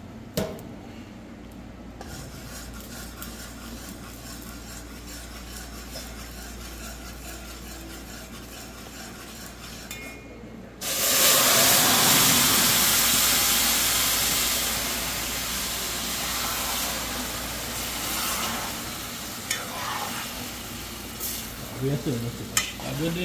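Seasoned liver tipped from a bowl into a pot of hot caramelised sugar, the browning for a Trinidad-style stew. It hits the pan about eleven seconds in with a sudden loud sizzle that slowly eases off as it is stirred with a spoon. Before that there is only the faint steady sizzle of the sugar browning in the pot.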